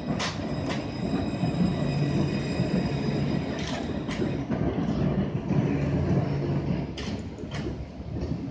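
Alstom Citadis 402 low-floor electric tram rolling slowly past close by: a steady low hum with a faint steady high whine over it, and a few sharp clicks now and then.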